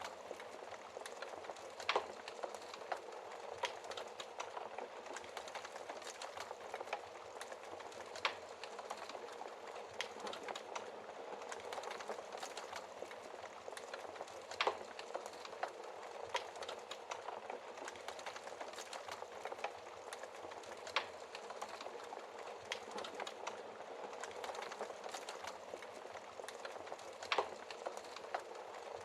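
Wood fire crackling steadily in a fireplace, a dense patter of small crackles with a louder sharp pop about every six seconds, five in all.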